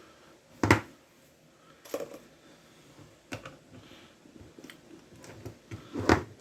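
Sharp clicks and knocks of a small plastic massager housing being handled and pried at to split it open, four separate hits with the loudest about a second in and another near the end.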